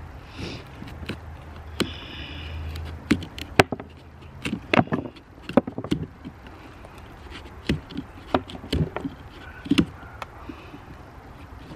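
Large kitchen knife stabbing and sawing into a pumpkin's rind: an irregular run of sharp clicks and crunches, loudest a few seconds in and again near the end.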